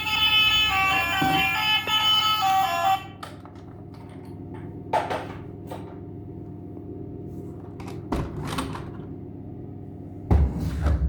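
Battery-powered toy vehicle's electronic horn playing a tinny melody, which cuts off about three seconds in. After that, a few faint clicks over a steady hum, then a loud low rumble starts near the end.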